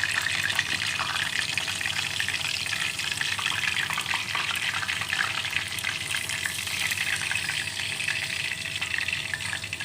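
Hot cooking oil in a deep pan sizzling and crackling steadily as pork chops deep-fry.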